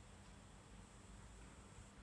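Near silence: faint steady background hiss with a low hum and a faint high, thin tone.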